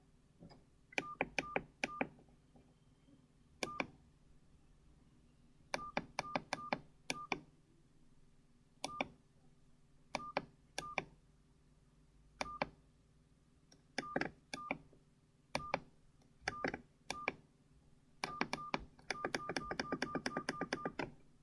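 Medion M5511 mobile phone's keypad tones as its buttons are pressed: short single beeps, each with a click, coming singly and in small groups at irregular intervals, then a quick run of about a dozen near the end.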